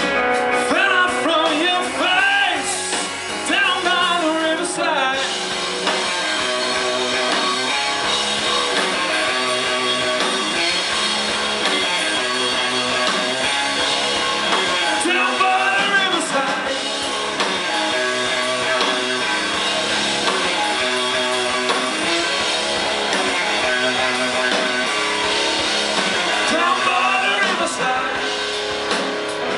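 Live rock band playing a song: sung lead vocal over electric guitar, bass guitar and drum kit.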